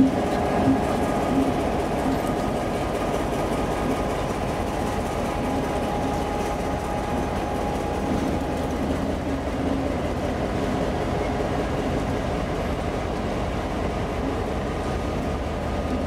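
A TRA R100-class diesel-electric locomotive running as it rolls slowly past at close range on street-level track, with its engine note steady and wheels knocking on the rails. The engine note grows fainter after about halfway as the locomotive draws away.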